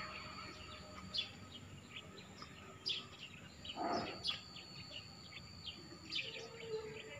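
Birds chirping outdoors in short, scattered high calls over a steady thin high-pitched drone, with one brief louder sound about four seconds in.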